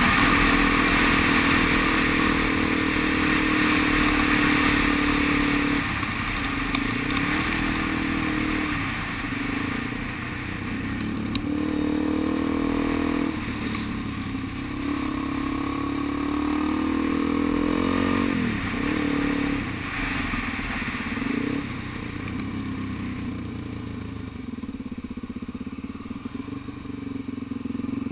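Dual-sport motorcycle engine running under way, its pitch falling and climbing several times with throttle and gear changes, over steady rushing wind noise on the camera.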